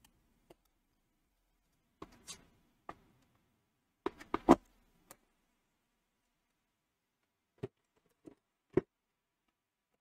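Plastic battery cover and case of a Uni-T UT161D multimeter being pressed into place and handled: scattered clicks and knocks, the loudest in a quick cluster about four seconds in, then three separate taps near the end.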